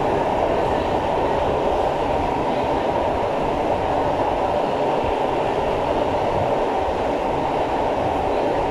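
Steady running noise inside an SMRT C651 metro car travelling along the line: an even rumble of wheels on rail and the car body, with no rise or fall in pitch.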